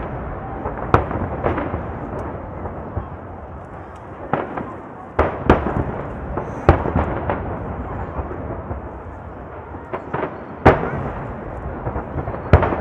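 Aerial firework shells bursting: about a dozen sharp bangs at uneven intervals over a continuous rumble, the loudest about two-thirds of the way through.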